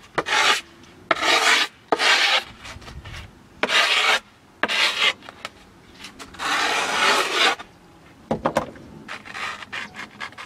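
A metal file scraped along the edge of a skateboard deck over fresh grip tape, in about six separate strokes of half a second to a second each, then a few short clicks near the end.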